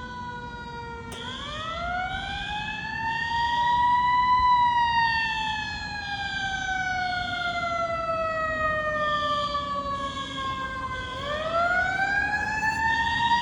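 Fire engine siren sounding a slow wail: it climbs for about three seconds, falls for about seven, and starts a new climb near the end. Under it, the building's fire alarm beeps high-pitched in repeated groups of three.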